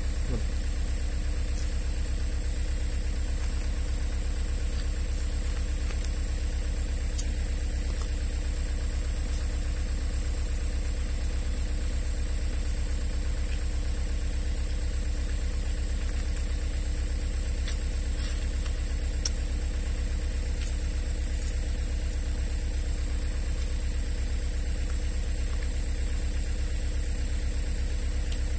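Excavator's diesel engine idling steadily with an even low throb.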